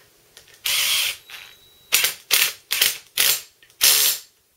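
Cordless drill-driver driving two bolts into a steel ballscrew nut holder. One short run about half a second in, then about five quick pulses of the trigger as the bolts run in and start to snug down.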